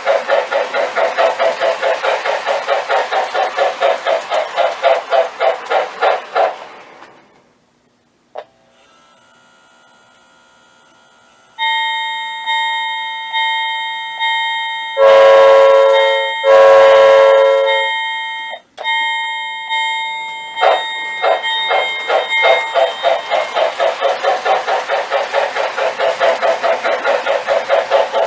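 Sound system of an MTH Rail King O-gauge Pennsylvania Railroad 6-8-6 turbine model locomotive. Its rhythmic running sound slows and dies away, and after a click and a few seconds of faint hum the bell rings about once a second. Two long whistle blasts follow, then after another click the rhythmic running sound starts again and quickens.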